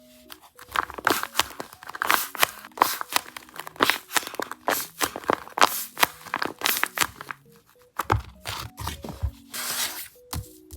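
Paper squishy being squeezed and handled: dense, irregular paper crinkling and crunching, with a longer hissing rustle near the end. Soft background music plays underneath.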